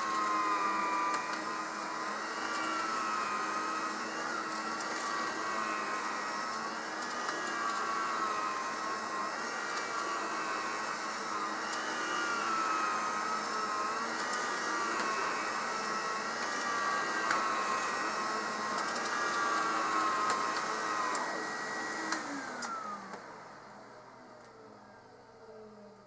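Electrolux Epic Series 6500 SR canister vacuum running with its power nozzle on carpet: a steady high-pitched whine from the motor, with a second tone wavering up and down every couple of seconds. The whine is the sign of dry motor bearings that are starting to go. About 22 seconds in, the motor winds down and the whine falls in pitch.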